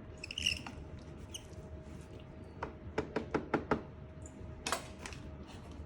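Light knocks and clatter of a kitchen utensil against a Thermomix mixing bowl as the contents are scraped down, with a quick run of about six taps about three seconds in.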